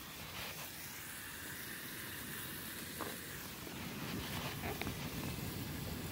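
Bacon sizzling as it fries in a pan on a gas camping stove, a steady hiss, with a single knock about three seconds in.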